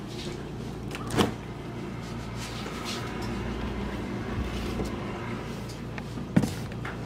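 Refrigerator door opened and a milk carton handled and lifted off the shelf, over a steady low hum. Two sharp knocks stand out, one about a second in and a louder one near the end.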